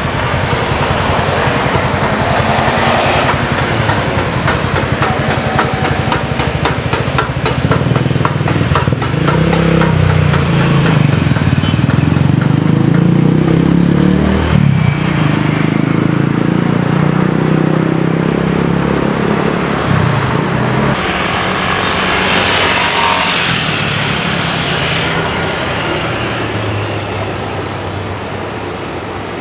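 Loud, continuous engine noise with a wavering low hum. It swells through the middle, turns brighter and hissier about three-quarters of the way through, then eases off near the end.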